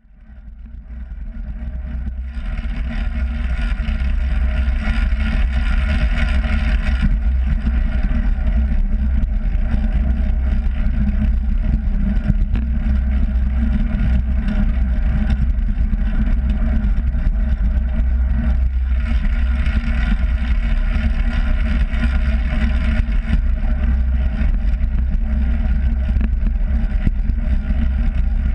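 Wind rushing and buffeting over a bike-mounted GoPro Hero3's microphone as a track bike rolls around a concrete velodrome, with tyre noise from the concrete under the rumble. It fades in over the first couple of seconds, and a brighter hiss swells twice for a few seconds.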